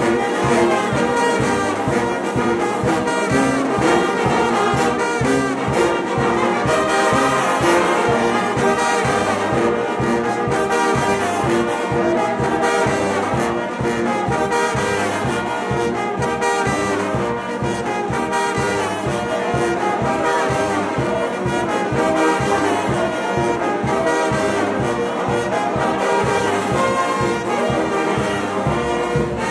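Brass band music with a steady beat, playing for a procession.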